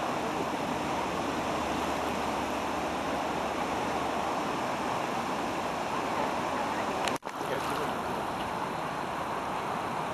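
Steady rushing of a river in full flood, an even wash of fast-moving water, cut off for an instant once about seven seconds in.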